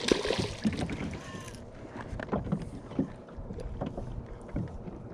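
A large hooked fish thrashing and splashing at the surface beside a kayak for the first second and a half, then scattered light knocks.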